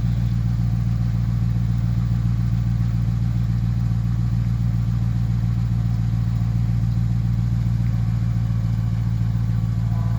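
2011 Jeep Grand Cherokee's 5.7 Hemi V8 idling steadily through a Hooker BlackHeart cat-back exhaust, with a super deep tone.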